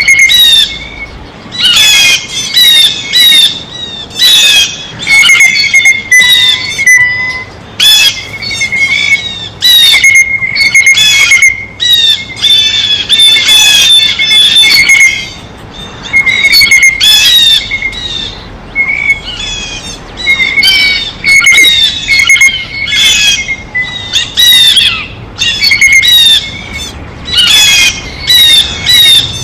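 Blue jays calling over and over, in runs of short calls with brief pauses between.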